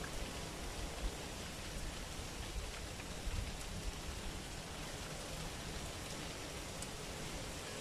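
Steady outdoor hiss with an uneven low rumble of wind on the microphone; no bird calls stand out.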